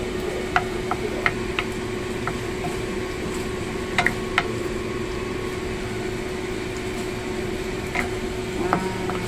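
A wooden spatula stirring and turning beef and thick noodles in a frying pan, with scattered short clicks and scrapes against the pan over a steady background hum.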